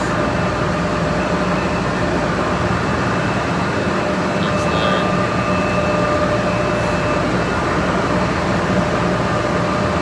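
Steady drone of running mechanical-room machinery: a constant hum with a thin, steady whine over it.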